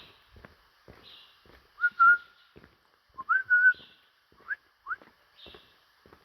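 Birds giving loud whistled calls, short notes that slide upward and hold, several times, with footsteps crunching on rock between them.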